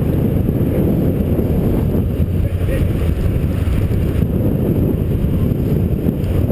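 Steady low rumble of a sportfishing boat under way, its engine running, with wind buffeting the microphone.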